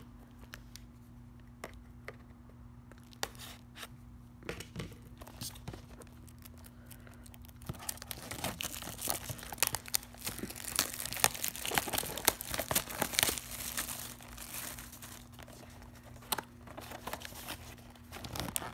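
Plastic shrink-wrap being torn off a sealed baseball card box and crinkled by hand. There are scattered handling clicks at first, then dense tearing and crinkling from about eight seconds in until about fourteen seconds in, and lighter crinkles near the end.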